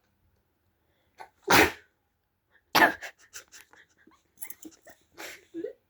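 A person sneezing loudly twice, about a second and a half apart, each a sudden burst, followed by a few seconds of short, softer sounds.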